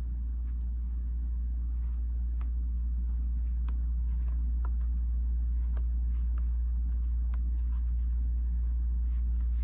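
A steady low hum or rumble throughout, with faint, scattered light ticks.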